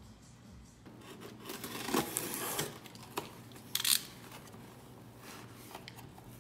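Cardboard shipping box being cut open with a box cutter, then the flaps pulled open: scraping and rustling cardboard, with a short, sharp rip a little past the middle.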